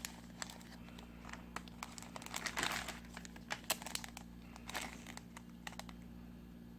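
Close-miked eating sounds of a person eating cold buckwheat-style ramen noodles: wet mouth clicks and chewing, with a few short noisy slurps or bursts in the first few seconds, thinning out near the end.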